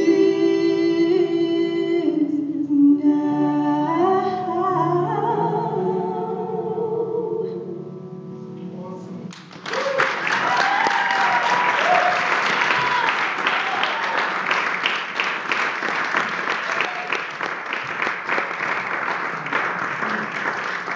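Two women singing in harmony with piano, holding the closing notes of a hymn, which die away about nine seconds in. An audience then breaks into applause, with a few voices calling out over the clapping.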